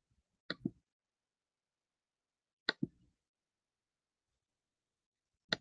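Three short clicks from someone working a computer, roughly two and a half seconds apart, each a sharp tick followed at once by a lower, softer knock.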